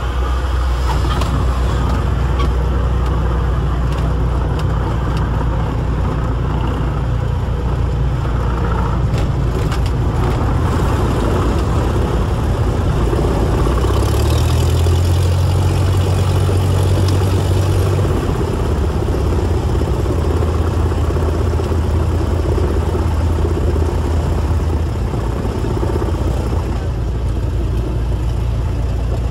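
Engine and propeller of a single-engine light plane running steadily, heard inside the cabin as the plane rolls along a runway. The drone grows louder for a few seconds about halfway through, then settles back.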